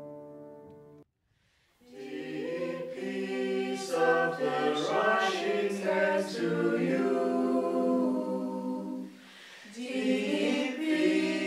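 A held chord of background music ends about a second in; after a short silence a small group of men and women sing together unaccompanied, pausing briefly about nine seconds in before singing on.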